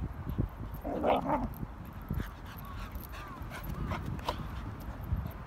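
Two Australian Labradoodles vocalising as they play-fight: a short bark about a second in, then a run of high, wavering whines and yips.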